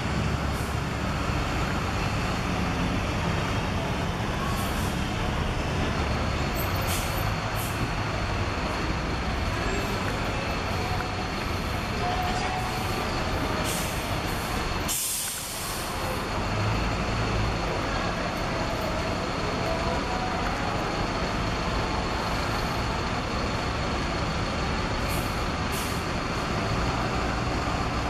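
Diesel bus engines running and manoeuvring, with short air-brake hisses now and then and one longer, louder air hiss about halfway through.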